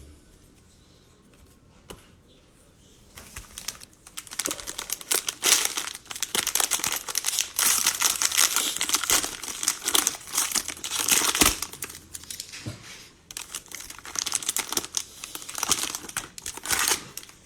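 Crinkling and tearing of a Mosaic Baseball cello pack's plastic wrapper as it is opened and handled, starting about three seconds in and going on almost to the end.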